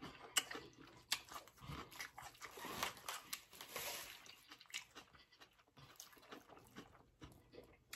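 Quiet chewing and mouth sounds of people eating pasta, with scattered small clicks.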